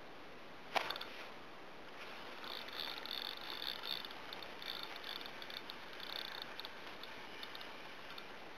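A sharp knock about a second in, then a fishing reel's ratchet clicking in rapid, uneven runs for several seconds.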